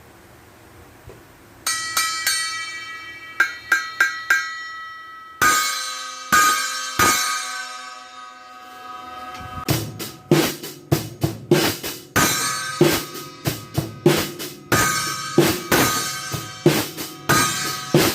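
Armada Achilles AXL cymbals being sound-tested. After a quiet start come a few single cymbal strikes that ring on, then a bigger crash with a long wash. From about ten seconds in, a drum-kit beat of bass drum, snare and cymbals plays.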